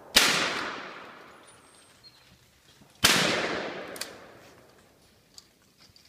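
Two loud, sharp bangs about three seconds apart, each echoing away through the woods for over a second.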